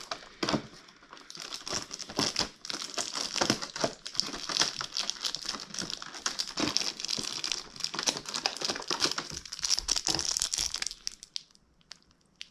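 Packaging crinkling and rustling in irregular bursts as a stuck item is worked out of an advent-calendar compartment, going quiet about eleven seconds in.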